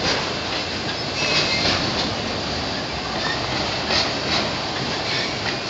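Loaded autorack freight cars rolling slowly past: a steady rumble of steel wheels on rail, with a short faint wheel squeal a little over a second in and a few clicks of wheels over rail joints near the end.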